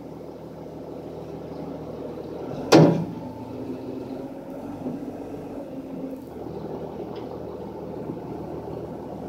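John Deere loader's diesel engine running steadily under load as it drags a stuck box truck out on a tow chain. One loud metallic clank about three seconds in, as the chain takes up its slack and snaps taut.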